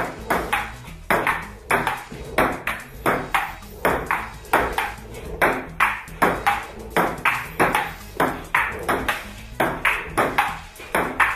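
Table tennis rally between a player and a ping pong robot: the ball clicks off the paddles and the table in a steady, quick rhythm of several hits a second, each click followed by a little room echo.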